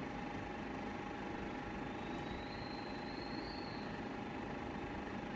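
Steady background hum with a constant faint tone running under it; a faint high tone comes in briefly around the middle.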